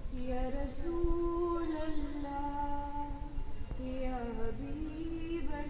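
A girl singing a naat, an Islamic devotional song, solo with no instruments, in long held notes that slide slowly up and down in pitch.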